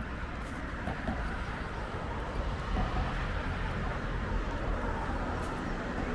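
Steady city traffic noise: a continuous low rumble of road traffic on a busy bridge, without distinct separate events.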